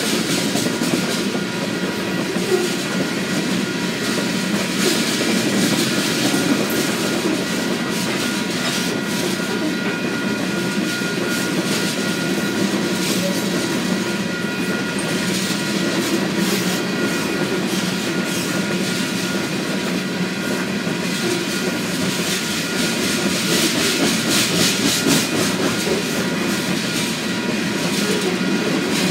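Freight train of covered hopper cars rolling steadily past, steel wheels clicking over the rail joints.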